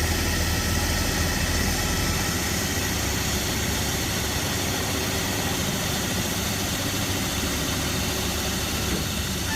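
Rock core-drilling rig running steadily: an even, unchanging mechanical noise with a low hum.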